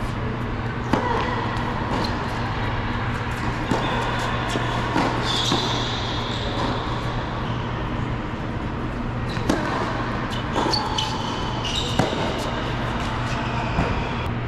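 Tennis played on an indoor hard court: sharp knocks of racket hitting ball and ball bouncing every second or two, with high squeaks of shoes on the court, over a steady low hum.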